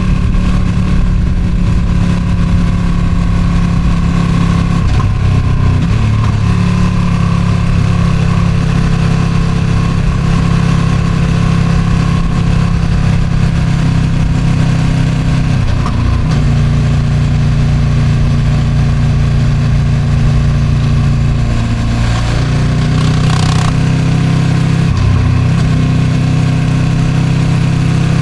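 Ducati Streetfighter V2's 955 cc Superquadro V-twin on its stock exhaust, running under way at highway speed; the engine note shifts in pitch a few times with throttle and gear changes. Strong wind noise on the microphone.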